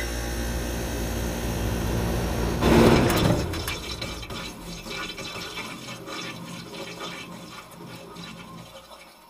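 Logo-reveal sound effect: a rushing swell with a low rumble that peaks about three seconds in, then fades away slowly.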